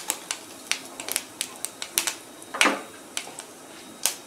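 Mustard seeds popping and crackling in hot oil in a steel kadai during tempering: sharp, irregular pops, several a second, with a louder pop about two and a half seconds in and another near the end.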